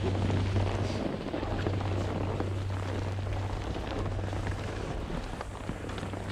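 Wind noise on a skier's camera microphone, a steady low rumble, over the hiss of skis sliding across packed snow.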